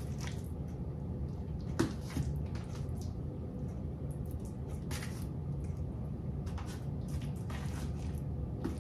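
Metal spoon scooping a soft sandwich filling from a bowl and dabbing it onto bread slices: a few light clicks and scrapes of the spoon, over a steady low hum.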